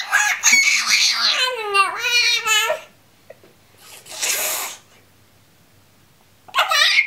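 A baby squealing: long high-pitched squeals whose pitch swings up and down for nearly three seconds, a short breathy burst about four seconds in, and another short squeal near the end.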